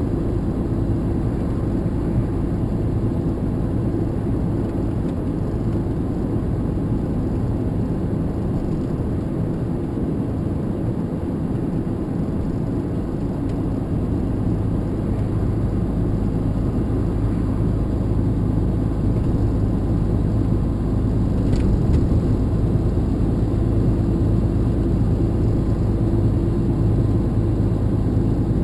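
Steady engine and road drone heard from inside a moving vehicle's cabin, with a single faint click about two-thirds of the way through.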